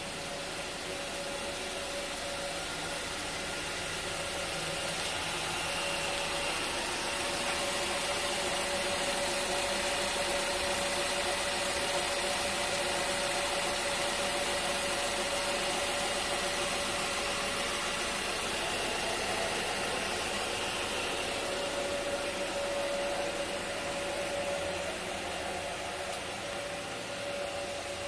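2010 Mazda CX-7's 2.5-litre four-cylinder engine idling steadily. It grows louder through the middle and fades again toward the end.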